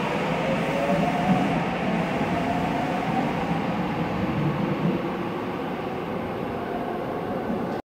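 Electric subway train accelerating away through a tunnel: a motor whine rising in pitch over the first few seconds, over steady running noise. The sound cuts off abruptly near the end.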